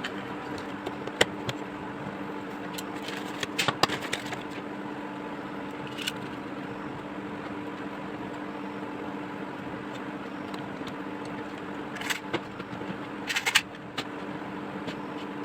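Steady electrical hum under scattered light clicks and small scrapes, with a few quick rattling clusters, typical of small parts and tools being handled on a repair bench.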